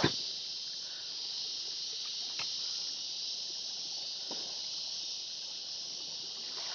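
A steady high hiss, with one sharp click right at the start and a couple of faint ticks later.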